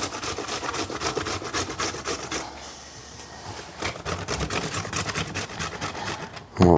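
Young beetroot being grated on a hand grater: quick, even rasping strokes, with a pause of about a second midway before they resume.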